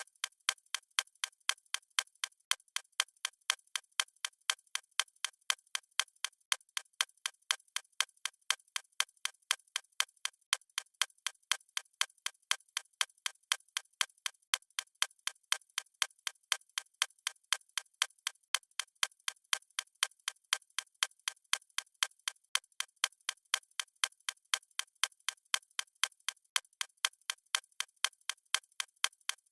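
A watch ticking steadily: crisp, evenly spaced ticks, a few a second, with no change in pace.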